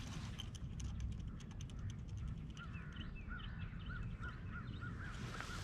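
A bird calling in a quick run of short, repeated notes, about two or three a second, starting about two and a half seconds in, over a steady low rumble of wind and water. A few faint clicks come in the first two seconds.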